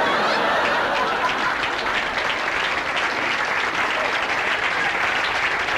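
A large audience applauding steadily in response to a comedian's punchline.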